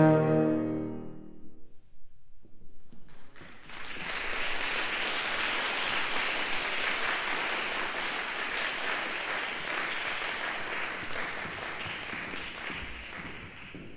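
The final chord of euphonium and piano dies away in the first second or so, then an audience applauds steadily, thinning out near the end.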